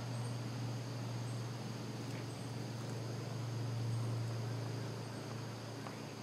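Insects trilling steadily, with faint short high chirps about once a second, over a steady low hum.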